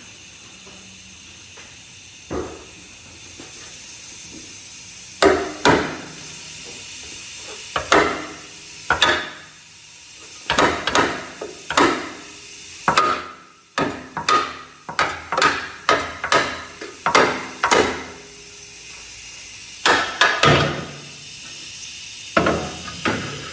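Repeated sharp metal bangs with a short ring, about two dozen in irregular runs, from a long steel bar striking the front cross member of a 2010 Ford F-150 to work it loose for removal.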